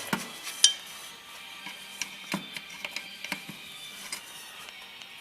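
Scattered sharp metallic clicks and clinks as a steel parking brake cable and its end fittings are handled and worked into place.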